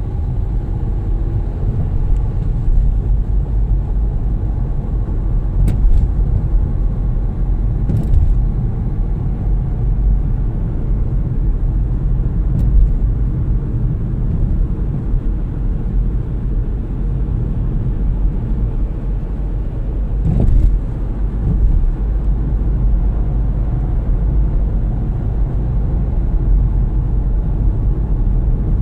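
Steady low road and engine rumble heard from inside a moving car's cabin, with a few brief knocks scattered through it.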